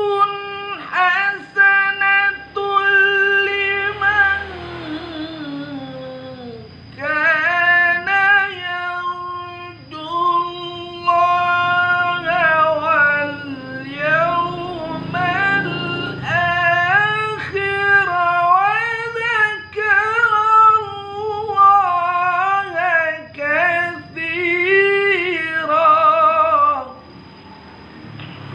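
A solo voice chanting Quran recitation in the melodic tilawah style, pitched high, with long ornamented runs that bend and waver in pitch. About four seconds in, a long phrase slides downward before a short breath, and the chant stops shortly before the end.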